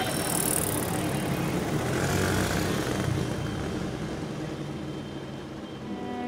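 Busy street traffic: small engines of motorcycles and auto-rickshaws running and passing, in a steady mix of road noise.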